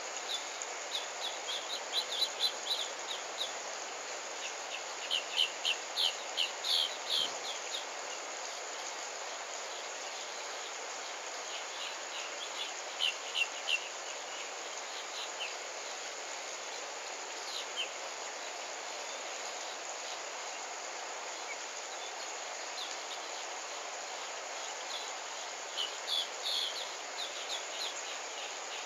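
Outdoor ambience: a steady hiss broken by short runs of high, quick chirps. The runs come in several clusters a few seconds apart.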